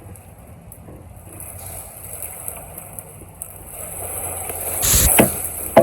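A steady low engine hum, then a swelling rush of noise that ends in a heavy crash about five seconds in, with a sharp knock just after: timber and brush coming down during land clearing.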